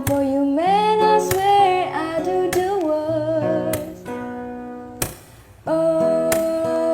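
A woman's voice singing a wordless, sliding melodic run over strummed acoustic guitar chords. The guitar carries on alone for a moment, and then she holds a long steady note.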